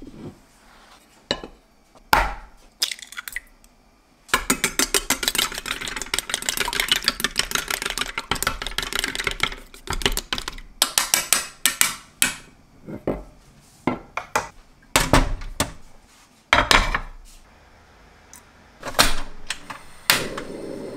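Wooden chopsticks beating an egg in a stainless steel bowl: a fast run of light clicks against the metal for several seconds, then slower scattered taps, after a few knocks on a wooden cutting board. Near the end a steady rush begins as the portable gas stove's burner is lit under the pan.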